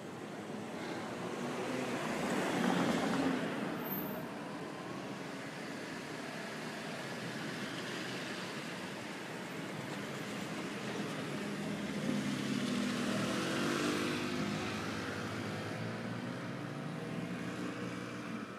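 Road traffic: a car passes about three seconds in, then a second vehicle's engine swells past in the second half, its pitch shifting as it goes by.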